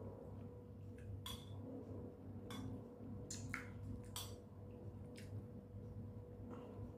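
Metal spoon clinking and scraping against a plate as someone scoops up rice, about half a dozen light clicks spread through, over a faint steady hum.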